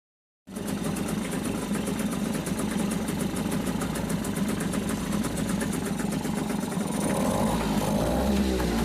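Tohatsu 3.5 hp short-shaft outboard motor running steadily with a fast, even ticking; its sound shifts and grows slightly louder near the end.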